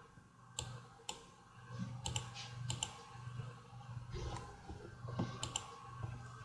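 Computer mouse clicking: about eight short sharp clicks, several in quick pairs, over a low steady hum.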